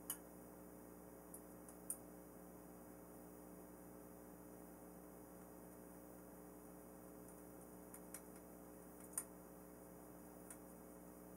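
Near silence with a steady low room hum, broken by a handful of faint, irregular clicks as small screws and plastic propeller-hub parts are handled.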